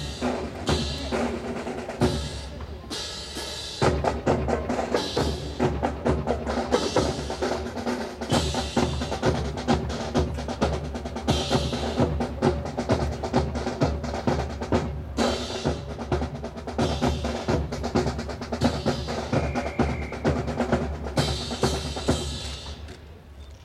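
Drum corps playing a rapid marching cadence on snare and bass drums, with rolls and crisp rim strokes, dying away near the end.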